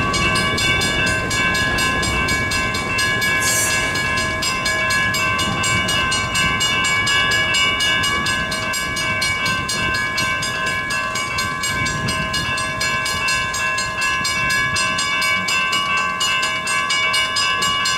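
Freight cars of a Union Pacific manifest train rolling past: flatcars loaded with concrete ties and covered hoppers, their wheels rumbling and clacking over the rail joints. A grade-crossing bell rings steadily over it.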